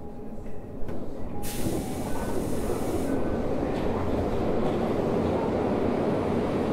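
Toei 5300 series subway train heard from on board in the tunnel. Its running noise builds up over the first couple of seconds and then holds steady, with a burst of hiss about a second and a half in.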